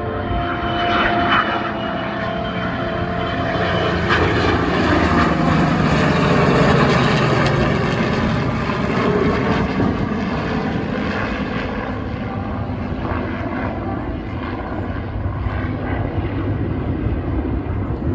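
Heritage Flight formation of a P-51 Mustang, an A-1 Skyraider and an F-22 Raptor flying past: piston engines and a jet together, engine pitch dropping as they pass, loudest about seven seconds in, then slowly fading away.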